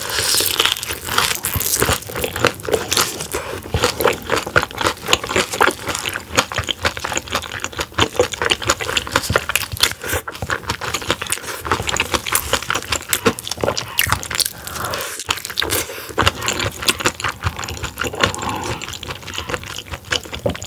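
Close-miked crunching and chewing of battered, deep-fried soft-shell crab: a dense run of crisp, crackling bites as the fried shell and batter break between the teeth.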